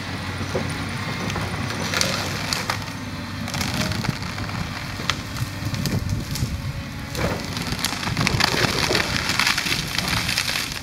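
Volvo 210 excavator's diesel engine running under load as it pushes over a large evergreen tree, with wood cracking and splintering. Branches crackle and crash in a dense burst over the last few seconds as the tree goes down into the brush.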